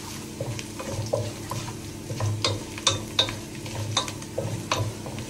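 Spatula stirring garlic, onion, mustard and cumin seeds frying in hot oil in a saucepan: a sizzle with scattered sharp, irregular pops and clicks of the tadka cooking and the spatula working the pan.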